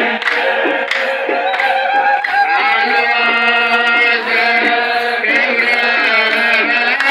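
Ethiopian Orthodox clergy chanting together in long, held and gliding tones, over a steady beat of about two strokes a second.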